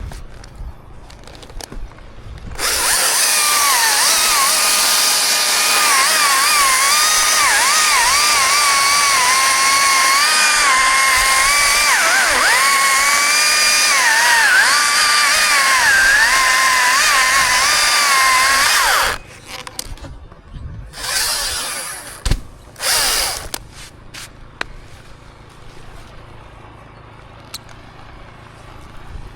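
Chainsaw running at full throttle through a cut for about sixteen seconds, its pitch dipping and wavering as it bogs under load, then stopping abruptly. Two short revs follow.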